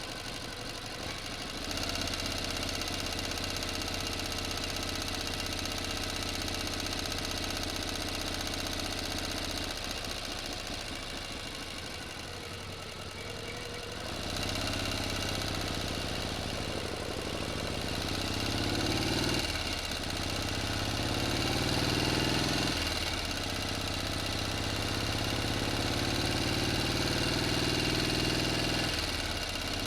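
Motor engine running steadily at a low, even speed. From about halfway its revs climb and drop back sharply several times.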